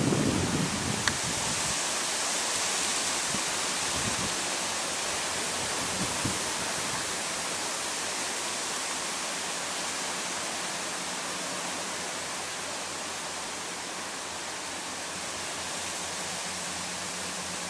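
Strong wind noise: a steady hiss of wind through the trees, with gusts buffeting the microphone in the first second and again briefly about four and six seconds in.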